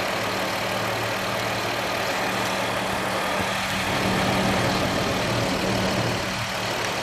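2007 Jeep Wrangler's 3.8-litre V6 idling steadily, with no grinding noise in this stretch.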